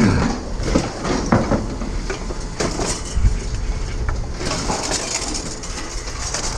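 Scrap metal being handled and dropped: a string of separate clanks and knocks over steady yard noise, with a brief falling squeal at the start.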